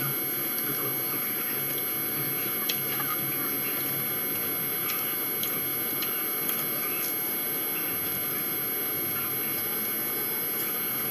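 Steady hum and hiss of room noise, with a few faint clicks from eating: a fork against a plate and bites of food.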